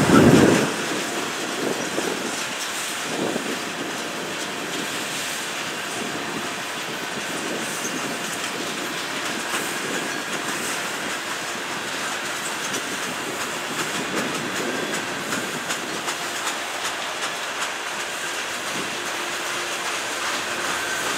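Freight train tank cars and a covered hopper rolling past, their steel wheels clicking over the rail joints over a steady rolling rumble. A brief loud knock comes right at the start.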